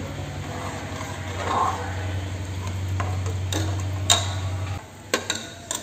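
Steel ladle stirring rice in liquid inside an aluminium pressure cooker, with a few sharp clicks of the ladle against the pot, the loudest about four seconds in. A steady low hum runs underneath and stops shortly before the end.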